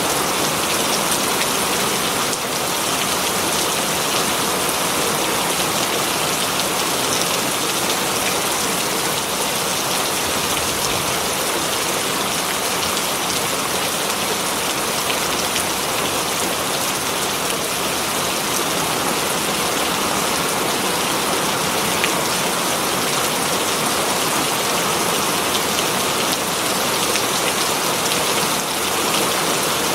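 Very heavy rain falling steadily on green leaves: a dense, even patter.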